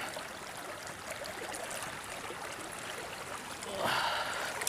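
Small river water flowing and trickling steadily, with a brief louder rush of noise near the end.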